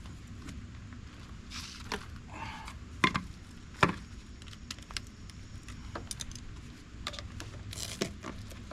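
Scattered metallic clinks and knocks from handling and prying apart scrap appliance parts, with two sharp knocks about three and four seconds in and some rustling between.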